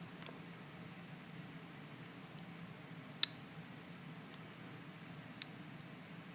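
A few short, sharp clicks as a pick and tension wrench work the pins of a Lockwood 334M45 stainless steel padlock, the loudest about three seconds in. A low steady hum runs underneath.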